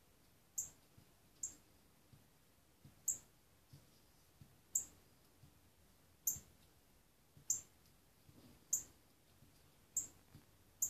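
A northern cardinal pecking at window glass: sharp, single taps about once every second or so, slightly irregular, with a few fainter taps between.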